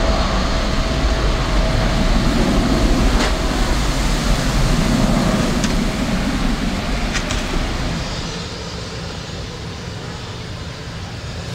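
Jet engines of an Airbus A320 airliner on the runway, a steady, distant rumble. The noise drops to a quieter steady level about eight seconds in.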